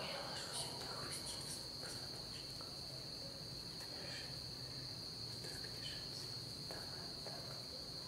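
Crickets chirring in one steady, unbroken high trill, with a few faint, brief rustles from hands and bodies shifting on the bedsheet during the massage stretch.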